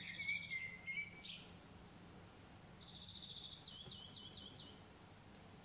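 A small songbird singing faintly. It gives a fast trill with a held whistled note, then after a pause another trill that runs into about five quick down-slurred notes.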